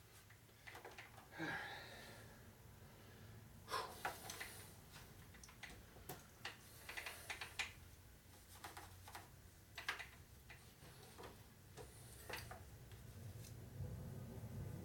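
Faint scattered clicks, taps and rustles of hands handling a cylinder hone and a cast-iron engine block, with no machine running; a low hum comes up near the end.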